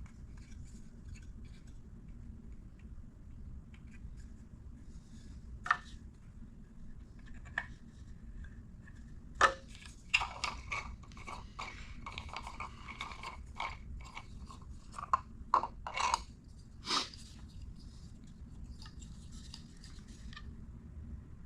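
3D-printed plastic whistle parts being handled and set down on a workbench: scattered clicks and light taps, thickest from about ten to seventeen seconds in, over a steady low hum.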